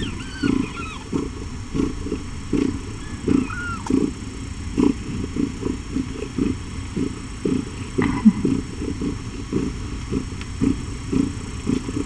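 Mother cat purring in a steady low pulsing rhythm while her newborn kittens nurse, with a few short, high kitten squeaks.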